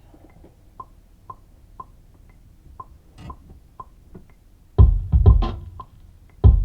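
Programmed electronic beat from a sampler or drum machine. Faint short ticks come about twice a second, then about five seconds in a loud drum pattern with heavy kicks comes in, breaks briefly and starts again.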